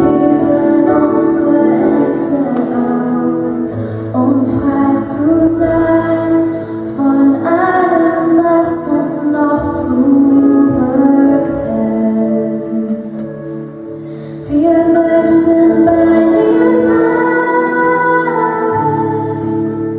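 Slow worship music: sustained chords with a woman singing. It softens a little past the middle, then swells up again suddenly about two-thirds of the way through.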